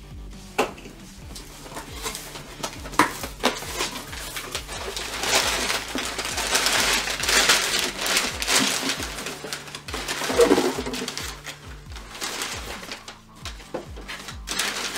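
Cardboard shipping box being opened, with a few sharp knocks from the box and flaps and a long stretch of crinkling packing paper as hands dig inside. Quiet background music runs underneath.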